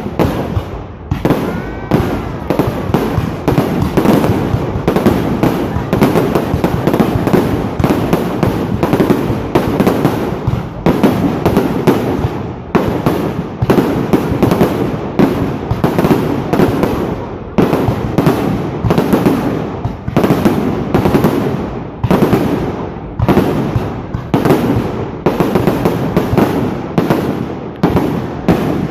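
Fireworks going off in a dense, near-continuous barrage of bangs and crackles.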